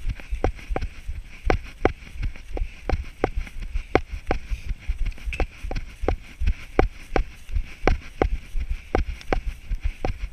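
A runner's steady stride across grass, each footfall heard as a sharp knock, about three a second, over a low rumble.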